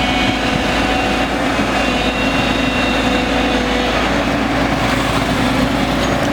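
JCB 3DX backhoe loader's diesel engine running steadily under work, a continuous hum with a steady low tone.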